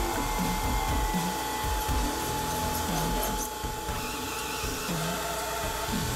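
Electric diamond sharpening wheel running, its motor giving a steady whine.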